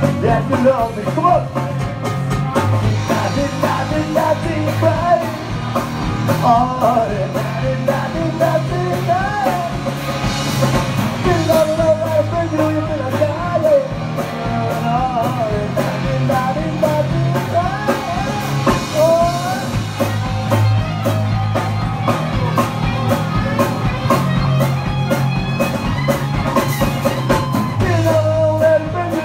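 Live rock and roll band playing: a singer over electric guitar, bass and a drum kit keeping a steady beat.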